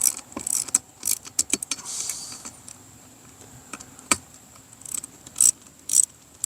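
Metal hand tools and small engine parts clinking and clattering as a small engine is taken apart, in scattered clicks and a few sharper knocks, with a short hiss about 2 seconds in.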